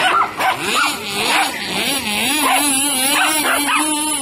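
Radio-controlled car's motor whining, its pitch rising and falling quickly as it is driven about, with dogs yipping as they chase it.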